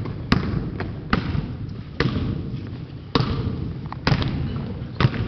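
A basketball being bounced on a hard floor, about once a second, each bounce a sharp thud with a short echo.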